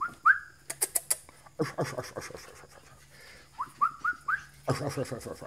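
A person whistling short rising notes to call puppies to follow: one or two at the start and a quick run of four about three and a half seconds in, with a few sharp clicks in between.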